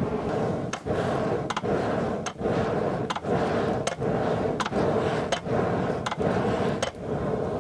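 Wooden Chinese box bellows being pumped steadily, a continuous rush of air blasting into a charcoal forge, with a sharp wooden clack about every three-quarters of a second as the stroke changes.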